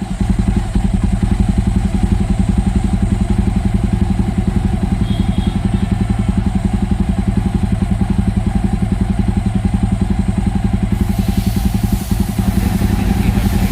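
Single-cylinder motorcycle engine idling steadily at the exhaust, a fast, even beat of firing pulses. A hiss joins in near the end.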